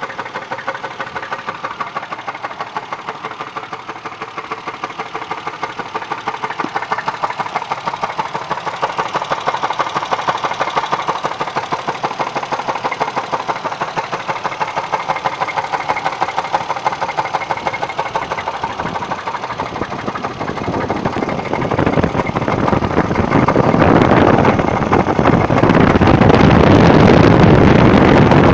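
Engine running with a fast, even knocking beat, growing much louder about two-thirds of the way through. The source of the knock is unknown.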